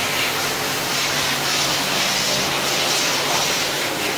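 FEMCO HL-35 slant-bed CNC lathe running, a steady mechanical whir and hiss. A faint low hum comes in about a second in.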